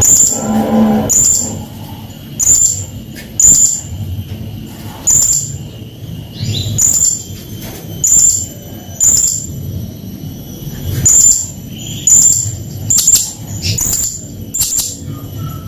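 Blue-crowned hanging parrot (serindit) giving harsh, shrill chirps. The short, very high notes repeat roughly once a second, sometimes in quick pairs.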